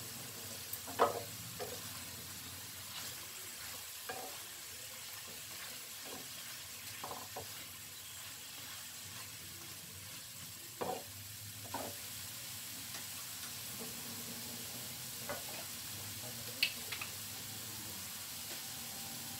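Onions, paneer cubes and capsicum cubes faintly sizzling in a frying pan, with a spatula stirring and scraping against the pan in short knocks now and then, the loudest about a second in.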